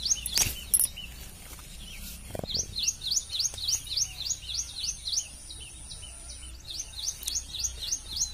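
A bird calling in fast runs of short, sharp chirps, about four a second, with a pause of a second or two between runs. One sharp click sounds about half a second in.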